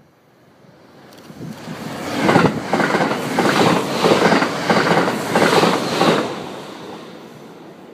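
Shirasagi limited express electric multiple-unit train passing close at speed, its wheels clattering quickly and evenly over the rail joints. The sound builds from about a second in, stays loud for about four seconds, and fades away near the end.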